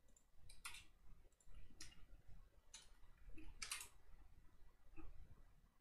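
About five faint, separate clicks, roughly a second apart, from a computer keyboard and mouse.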